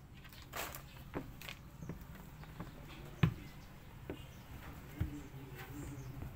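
Handling noises: scattered light taps and rustles, with a sharp knock just over three seconds in and a smaller one about five seconds in, over a steady low hum.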